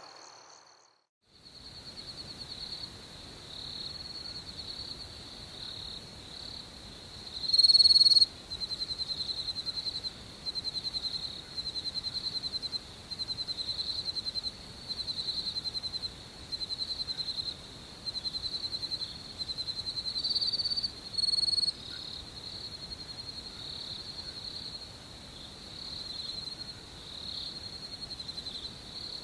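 Night crickets chirping: a steady high trill with a louder pulsed chirp that repeats every second and a half or so through the middle. The sound drops out briefly at the very start.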